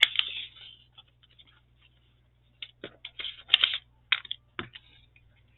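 Paper and stickers being handled: short rustles and small clicks and taps, with a sharp click right at the start and a quiet pause in the middle before another run of handling noises.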